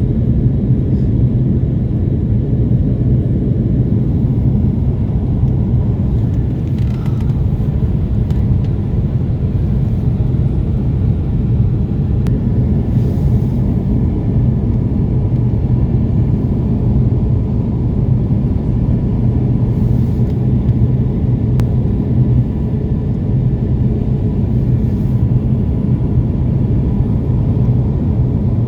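Steady low rumble of an airliner cabin in flight above the clouds: engine and airflow noise heard from inside the cabin, even and unbroken, with a faint steady tone.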